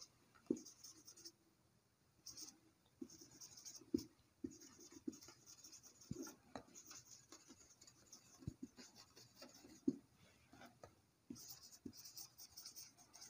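Faint squeak and scratch of a felt-tip marker writing on a whiteboard, in short bursts of strokes with pauses between, and a few soft taps as the tip touches the board.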